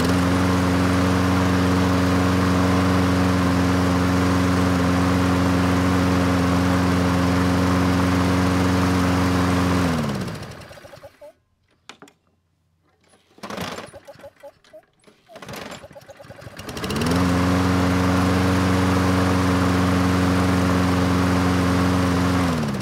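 Toro Recycler push mower's 7 hp Briggs & Stratton Quantum single-cylinder engine starting up and running at a steady governed speed. After about ten seconds it winds down and stops, and a few seconds later it starts again and runs steadily until it cuts off at the end. It is running not quite right, which the owner puts down to a carburetor that needs cleaning.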